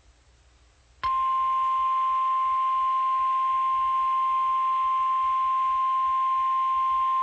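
NOAA Weather Radio warning alarm tone: after a second of near silence, a single steady high tone starts abruptly and holds without change. It is the alert that comes before a tornado warning is read.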